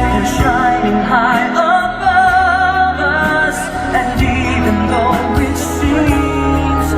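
A song with a singing voice carrying a wavering melody over steady instrumental backing.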